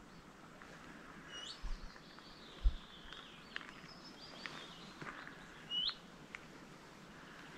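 Small songbirds calling: a short rising whistled note repeated a few seconds apart, with scattered brief chirps over a faint steady background. A soft low thump about two and a half seconds in.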